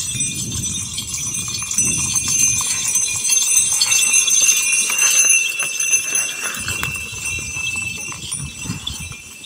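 Bells on a pair of plough bullocks jingling steadily as they walk, over low scuffing of their hooves and the wooden plough dragging through dry soil.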